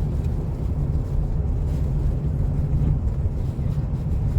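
Steady low road rumble of a moving car, heard from inside the cabin while driving on a snowy road.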